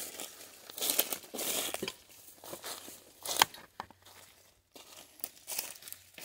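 Dry leaves and brush rustling and crackling as a person pushes on foot through forest undergrowth, with irregular footfalls and one sharp crack a little past the middle.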